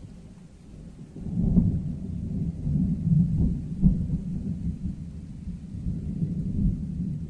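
Thunder rolling: a low rumble that swells about a second in and carries on with uneven peaks.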